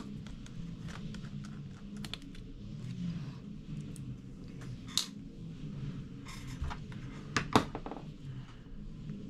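Small, irregular clicks and taps of a precision Torx T5 screwdriver and small metal parts as screws are worked out of a MacBook Pro, with a sharper double click a little past the middle.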